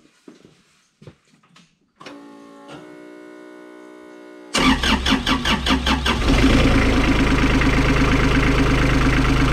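Isuzu 3LD1 three-cylinder diesel engine started after an oil change. A steady hum comes on about two seconds in. The starter cranks briefly, about four and a half seconds in, and the engine catches and settles into a steady idle.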